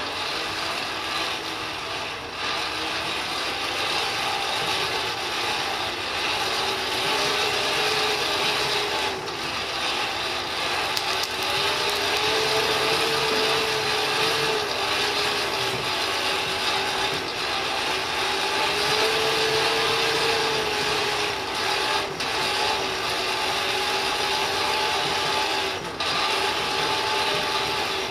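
Blower feeding air to a coal blacksmithing forge, a steady whirring rush whose pitch slowly rises and falls, with a few light clicks.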